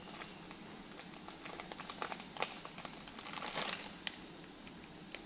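Faint crinkling and rustling of plastic packaging being handled, scattered small clicks with a longer rustle about three and a half seconds in.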